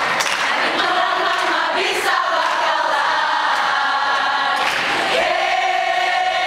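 A large group of voices singing together in unison, holding two long notes with a brief break between them.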